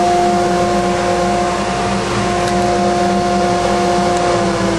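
Homemade two-stage dust collector running: a steady motor hum over the rush of air through the ducting. Its hum starts to drop in pitch near the end, as the motor winds down.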